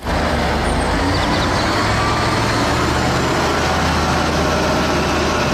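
Liebherr mobile crane's diesel engine running steadily, a low even drone with no change in pitch.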